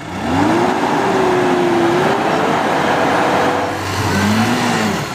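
Diesel dump truck, heavily loaded with timber and stuck in deep mud, with its engine revved hard under load as it tries to drive out. The revs climb sharply at the start, hold and climb again, then ease before a second shorter rev near the end.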